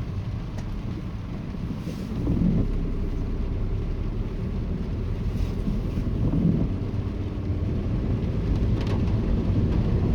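A car driving along a wet road: a steady low engine and tyre rumble heard from inside the cabin.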